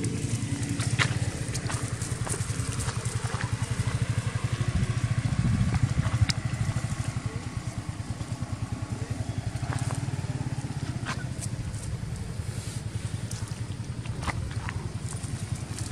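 An engine running steadily with a low, fast, even pulse, with scattered short clicks and rustles over it.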